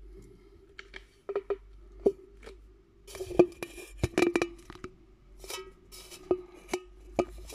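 Handling noise from a phone being gripped and repositioned: a string of sharp knocks and taps with rustling as fingers rub over the phone near its microphone, over a faint steady hum.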